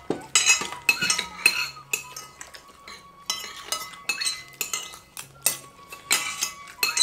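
Metal spoons clinking and scraping on ceramic plates and bowls as several people eat, in many irregular sharp clinks.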